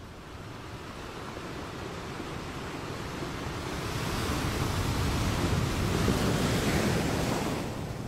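Ocean surf: a wave breaks and washes in, building steadily to its loudest a little after halfway, then easing off near the end.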